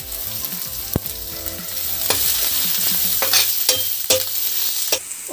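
Onions, green chillies, curry leaves, spices and garlic sizzling in hot oil in a steel kadai. A metal spatula stirs them, knocking sharply against the pan several times.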